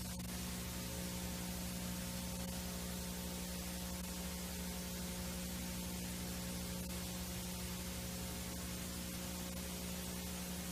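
Steady VHS tape playback hiss over a low, constant electrical hum with its overtones.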